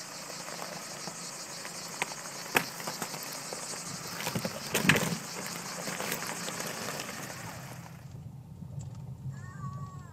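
Loose stones crunching and cracking under the tyres of a Dacia Duster as it crawls down a rocky track, with sharp knocks about 2 and 5 seconds in, the one near 5 seconds the loudest. Under it runs a steady high hiss of cicadas, which cuts off suddenly near the end.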